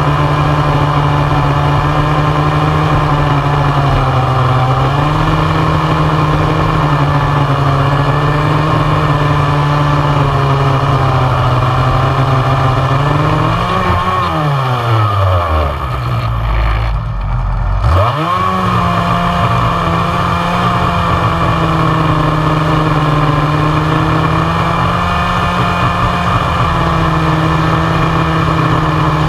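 Two-stroke chainsaw running at full throttle, cutting through a log. About halfway through, the throttle is let off and the engine note falls to a low idle; a few seconds later it revs quickly back up and carries on cutting at a steady high pitch.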